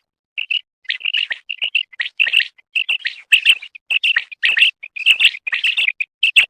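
Common quail (batair) calling: a quick, near-continuous run of short, high chirping notes, about three or four a second.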